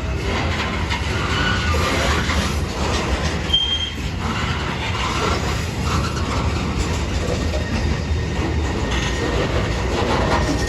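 Freight train cars rolling past, a steady rumble of wheels on rail, with one brief high wheel squeal about three and a half seconds in.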